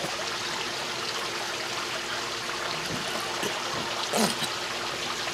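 Steady, even background hiss, with a faint short sound about four seconds in.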